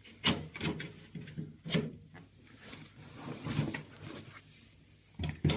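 Plastic clicks and knocks as a washing machine's drain pump filter is turned and pulled out of its housing, with sharp knocks about a quarter second and a second and a half in, among quieter handling noise.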